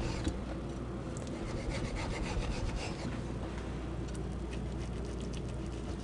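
Kitchen knife sawing through the baked pastry crust of a quiche, a steady run of many small crackly scrapes.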